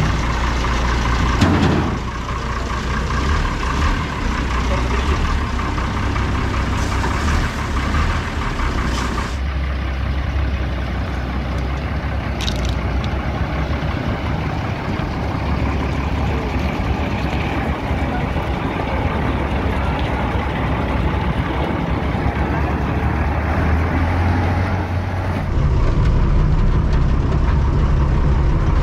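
Shaktiman (MAN 415) military truck's diesel engine running with a steady low rumble. The sound changes abruptly about nine seconds in and again near the end.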